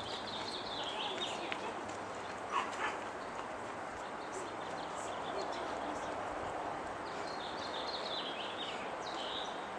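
Steady outdoor background noise with small birds chirping in short high phrases near the start and again near the end, and a brief sharp sound about two and a half seconds in.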